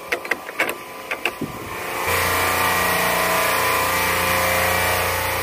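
Logo-animation sound effect: a few sharp clicks, then, about two seconds in, a loud steady drone with several held tones over a hiss.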